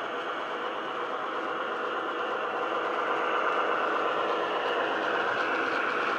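Hornby HST model's DCC sound decoder playing a Paxman VP185 diesel engine sound through its small speaker, running steadily and growing a little louder as the train approaches.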